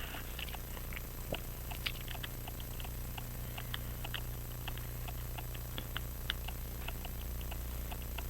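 Small, irregular metal clicks of a watchmaker's screwdriver working the stubborn plate screws of a Hamilton 992 pocket watch movement, several a second, over a steady low hum.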